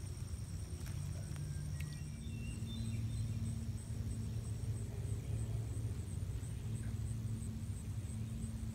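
Outdoor ambience at a pond: a steady low drone that drops slightly in pitch about two seconds in, with a faint, thin, high pulsing tone above it.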